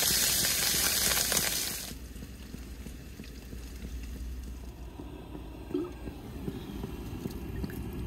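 Hot frying pan sizzling loudly with oil on a propane camp stove, cutting off suddenly about two seconds in. After that only a quieter low, steady rumble remains.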